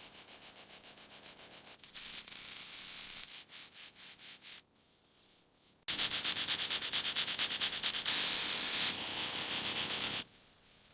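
Rapid, rhythmic hand-sanding strokes, about five a second. The first spell is fainter and the second, louder spell begins about six seconds in and stops shortly before the end.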